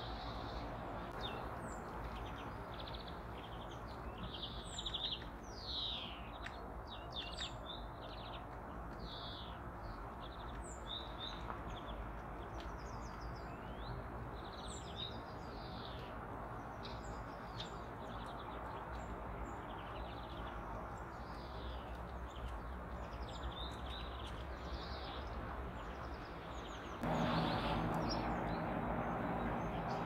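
Small songbirds at a winter feeder chirping and calling, many short high chirps in quick succession, over a steady low hum. About three seconds before the end the background noise steps up louder.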